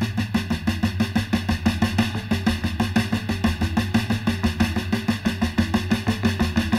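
Background music with a fast, steady drum beat over a low, sustained bass.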